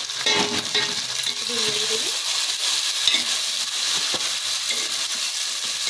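Ginger-garlic paste and sliced onions sizzling in hot oil in a metal pot, stirred with a metal spoon that knocks and scrapes against the pot now and then.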